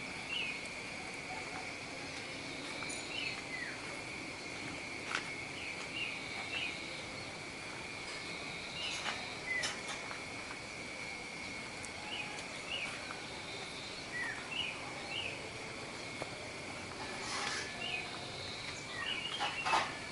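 Birds chirping in short calls every second or two over a steady high-pitched hum, with a few faint clicks.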